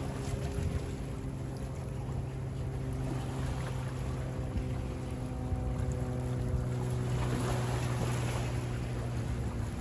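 Boat engine running at a steady, low hum, with choppy bay water lapping and wind over it. The water noise swells for a moment about seven seconds in.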